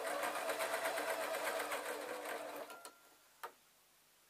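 Domestic electric sewing machine stitching at a fast, steady speed for about three seconds, then stopping. A single sharp click follows about half a second later.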